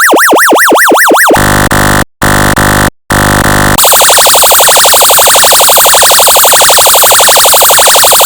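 Synthesized electronic siren tones from a function generator. A fast yelp sweeps up and down about four times a second, then gives way to a buzzing horn tone with two short breaks, about two and three seconds in. A rapid, shrill trilling warble follows.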